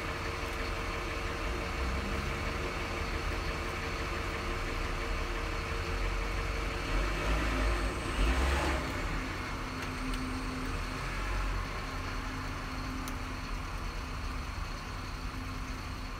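Steady low background rumble, swelling briefly a little past the middle.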